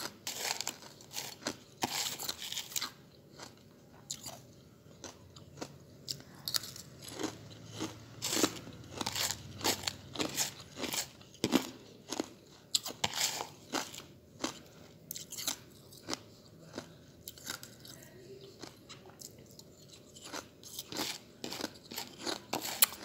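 Hard ice chips being bitten and chewed, giving a run of sharp, irregular crunches that thin out for a few seconds past the middle.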